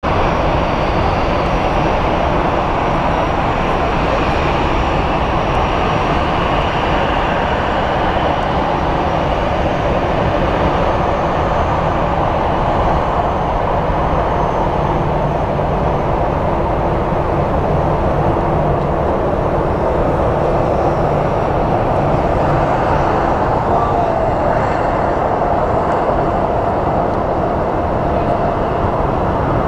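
Airbus A340-300 taxiing, its four CFM56 turbofan engines at low taxi power: a steady rush of jet noise with a faint whine.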